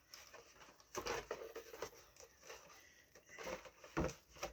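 A comic-book mailer package being opened by hand: faint rustling and scraping of the packaging, a little louder about a second in and again near the end.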